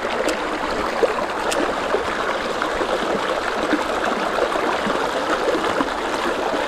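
Water of a small shallow stream running and babbling steadily over stones, with two faint ticks about a third of a second and a second and a half in.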